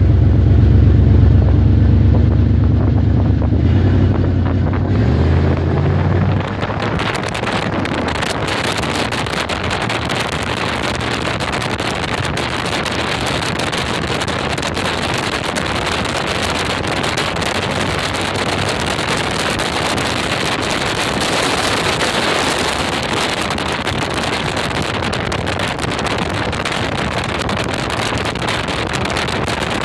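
Car driving on a wet, slushy road with wind buffeting the microphone. A low steady hum from the tyres on the Bailey bridge deck lasts about six seconds, then gives way to an even rush of wind and tyre noise.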